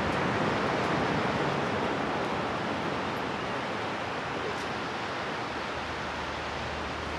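Steady rushing outdoor noise with no bird calls, slightly louder in the first couple of seconds; the macaws stay silent.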